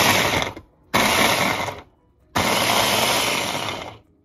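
Electric bowl-type blender (food chopper) pulsed three times, each a burst of motor whirr and blades chopping fresh herbs, onion, garlic and peppers for a green seasoning; the third pulse is the longest.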